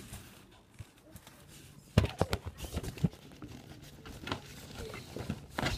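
Handling noise from a phone camera being moved: quiet at first, then a sharp knock about two seconds in, followed by scattered taps and rustling.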